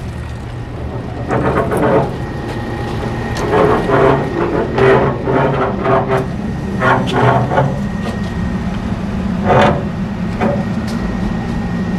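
Steady low machinery hum with a faint steady high tone, and irregular louder mid-pitched noises on top every second or two.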